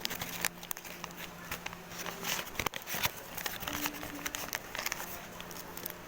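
Irregular rustling and light clicks of packaging and small toys being handled and opened, with a faint steady hum underneath.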